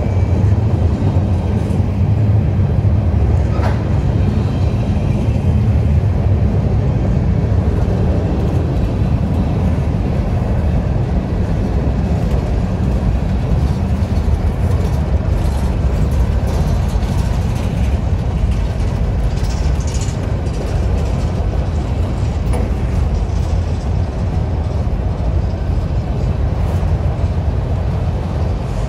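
Diesel freight train running, a steady low rumble.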